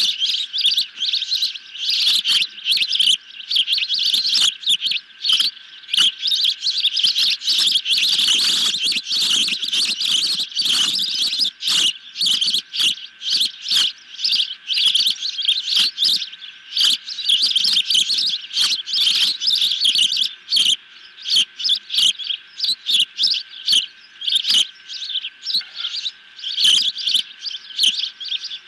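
Juvenile ospreys calling from the nest: a rapid, continuous series of high, piercing chirps that never lets up.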